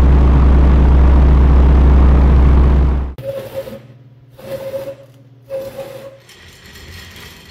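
A loud, steady low engine rumble that cuts off abruptly about three seconds in, followed by three short squealing scrapes.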